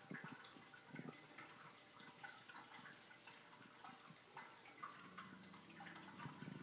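Faint scattered light clicks and taps of Savannah cats' paws and claws on a tile floor during play, over near-silent room tone. A faint low hum comes in about five seconds in.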